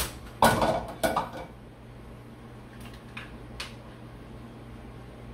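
Kitchen containers and utensils being handled on a counter: a sharp knock, then about a second of clattering, and a few light ticks a couple of seconds later.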